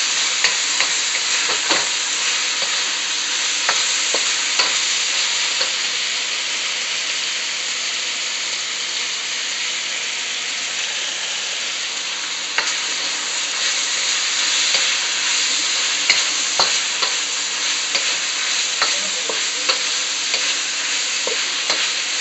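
Beef and onions sizzling in a wok during stir-frying, with the spatula scraping and knocking against the pan in irregular clicks as the food is tossed.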